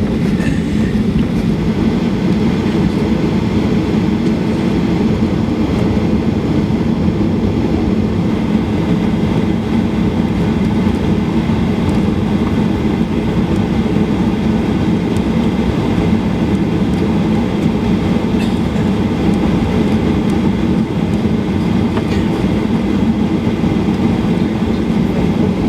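Steady low rumble of a Boeing 737-800's engines and airframe heard inside the passenger cabin, with no change in level or pitch.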